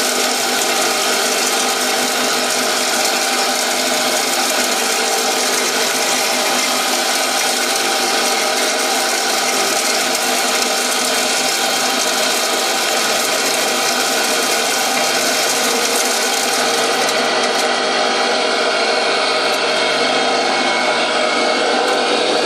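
Homemade wood chipper driven by the electric motor of an old household water pump, running steadily: a whining hum of several steady tones over a dense hiss. The highest part of the hiss thins out a few seconds before the end.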